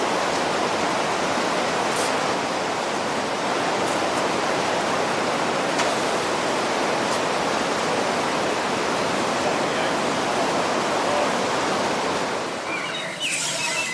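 Steam locomotive letting off steam: a steady, loud rush of hissing steam that swells in, holds for about twelve seconds, then dies away near the end.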